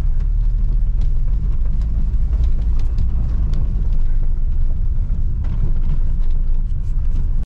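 Car running along at low speed, heard from inside the cabin: a steady low rumble of engine and tyres, with scattered light ticks.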